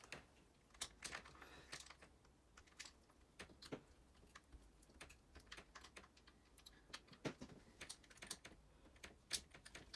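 Faint, irregular clicks and taps of small RC truck parts and a screwdriver being handled during assembly of the front suspension.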